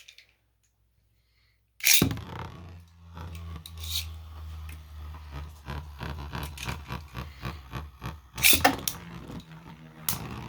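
Spinning Beyblade tops launched into a plastic stadium about two seconds in with a sharp crack, then spinning with a steady low hum and repeated clacking as they collide, with a loud clash near the end.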